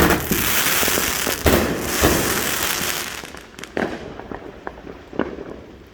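Consumer fireworks going off: a sharp bang, then about three seconds of dense crackling hiss with two more bangs in it, trailing off into scattered smaller pops.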